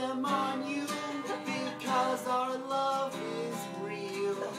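Acoustic guitar strummed as accompaniment to a man singing a held melody line.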